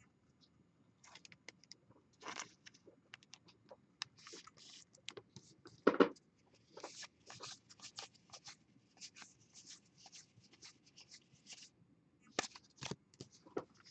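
Trading cards being handled: quiet, scattered scrapes and ticks of cards sliding and flicking against each other, with a louder knock about six seconds in.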